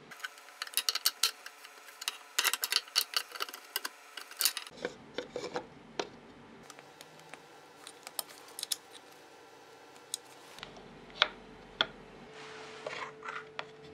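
Small metal parts and hand tools clicking and scraping as a homemade bench grinder's housing is screwed together. Rapid clicks come in the first four and a half seconds, then scattered single clicks.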